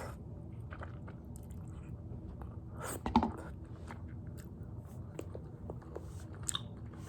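Close-miked chewing of a mouthful of spicy tteokbokki: soft, wet mouth clicks and bites, with one louder mouth noise about three seconds in.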